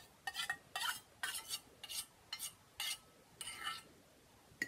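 Metal spoon scraping thick white glue out of a stainless steel measuring cup, in a run of short scrapes and light metallic clinks about two a second.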